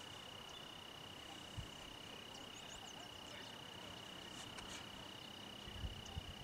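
Crickets trilling faintly and steadily in one unbroken high tone, with a few faint short high chirps in the middle and a handful of low thumps near the end.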